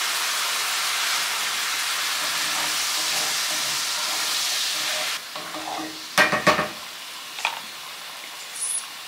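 Brandy and shallots sizzling hard in a hot skillet as the pan is deglazed and stirred with a wooden spatula, a loud steady hiss. About five seconds in the hiss drops off abruptly to a quieter sizzle. About a second after that come two loud knocks.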